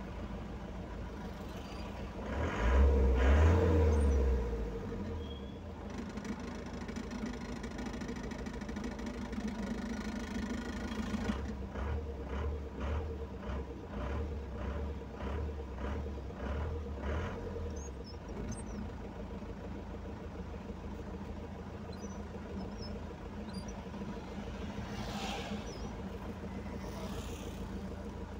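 Car engine and road noise heard from inside the cabin of a moving car, a steady low hum. A brief loud surge comes about three seconds in, and a run of regular low knocks, about two a second, comes midway.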